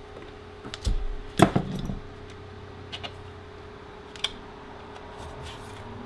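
Metal hand tools clinking and knocking together as they are handled, with a sharp clink about a second and a half in and a few lighter ticks later, over a steady hum.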